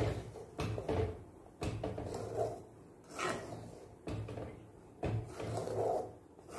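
Wooden spatula stirring and scraping thick coconut-paste gravy around a clay pot, in repeated strokes about once a second.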